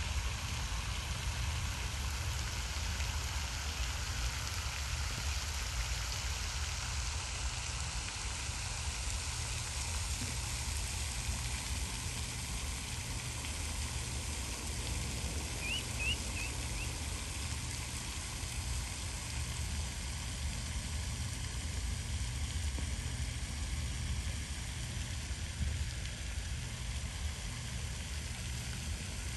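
Wind rumbling on the microphone under a steady, even hiss of outdoor noise. A bird gives three short high chirps a little past halfway through.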